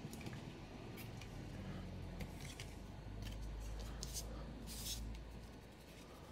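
Trading cards being picked up off a cloth playmat and handled: faint, scattered swishes and light clicks of card against card and mat, the longest swish about five seconds in.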